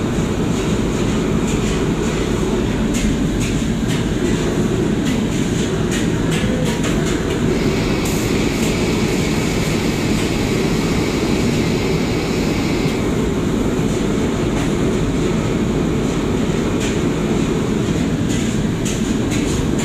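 Steady low roar of a commercial kitchen's wok burners and extractor hood, with scattered sharp clanks of metal ladles and spatulas against woks. A brighter hiss joins for about five seconds midway.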